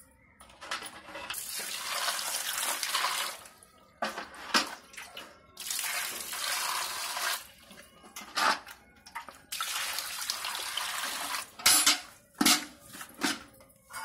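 Water poured into a metal basin in three long gushes of about two seconds each. Short sharp splashes and knocks fall between the pours and come thicker near the end.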